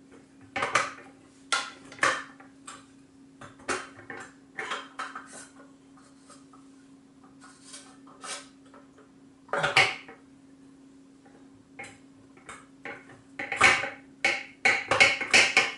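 Irregular clicks, knocks and scrapes of a plastic slicer/shredder attachment being pushed and twisted onto the metal attachment hub of a KitchenAid Artisan stand mixer, busiest near the end; the attachment sits crooked and will not seat. A faint steady hum runs underneath.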